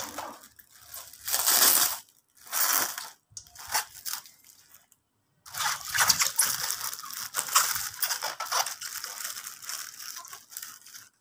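Clear plastic wrap around a whole chicken crinkling as it is handled: several short bursts of crackle, then a longer stretch of continuous crinkling from about halfway.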